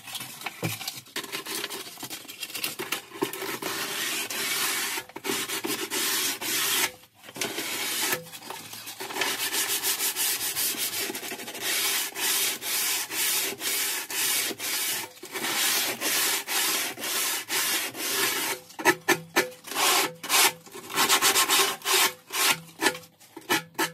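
Sandpaper rubbed by hand along the edge of a wooden shelf, smoothing the edge left by chiselling off its front lip: long scratchy back-and-forth strokes with brief pauses, turning to shorter, quicker strokes in the last few seconds.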